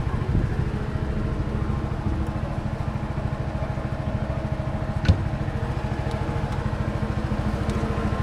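The PATAK Motors car's 450 cc quad-bike engine idling with a steady, even pulse. A single sharp knock comes about five seconds in.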